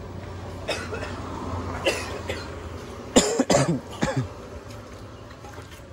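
A person coughing several times, the loudest harsh coughs coming between about three and four seconds in.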